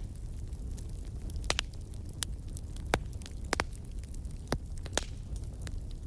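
Wood fire crackling, with irregular sharp pops and snaps over a steady low rumble of flames and wind.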